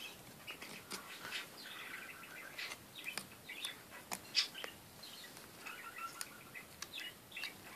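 Small birds chirping faintly in the background, many short chirps, with a few faint clicks among them.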